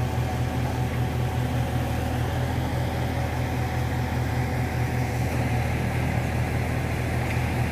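Diesel engine of a truck-mounted crane running steadily at a low, even pitch while it holds and lifts a load.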